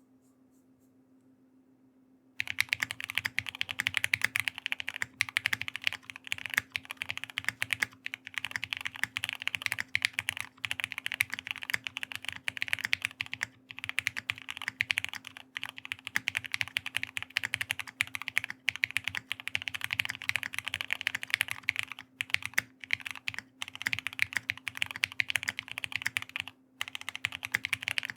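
Fast, continuous typing on a custom mechanical keyboard with Durock Lavender 67g tactile switches, PBT keycaps and Poron PCB foam, starting about two and a half seconds in after near silence, with a few brief pauses. Spacebar presses mixed in, its stabilizers described as scuffed.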